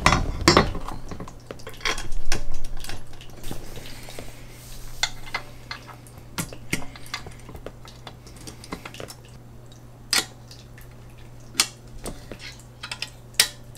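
Metal parts of an office chair's tilt mechanism being handled and fitted, giving scattered sharp metallic clicks and clinks about a second apart, after a stretch of handling noise in the first few seconds.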